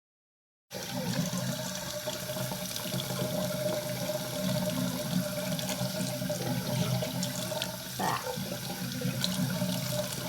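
Water running steadily from a tap into a sink, starting abruptly just under a second in.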